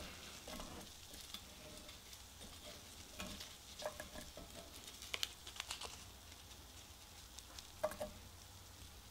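Wooden chopsticks stirring fried rice in a cast-iron skillet, with a handful of light clicks and scrapes against the pan over the faint steady sizzle of the rice still frying.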